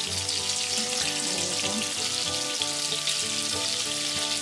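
Large prawns frying in hot oil in a skillet: a steady sizzle with fine crackles throughout.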